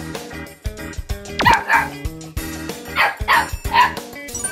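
Two-month-old Malinois–Welsh Corgi mix puppy barking in short, high, grumpy yaps: two about a second and a half in, then three more between three and four seconds in. Background music plays underneath.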